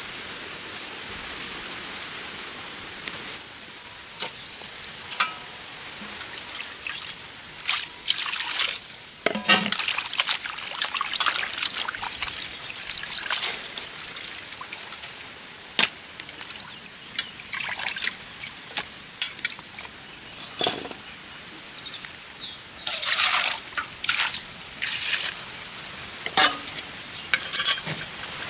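Cluster beans, onions and tomatoes being washed by hand in a steel wok of water: irregular splashes and sloshes with the odd sharp click.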